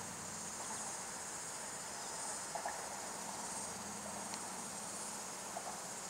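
Steady high-pitched insect chorus, swelling slightly now and then.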